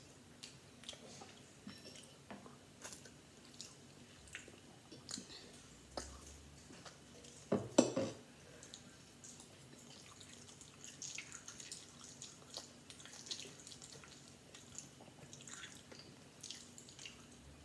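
Close mouth sounds of someone eating eggs with cheese: many small wet clicks and smacks while chewing, with one louder knock about halfway through.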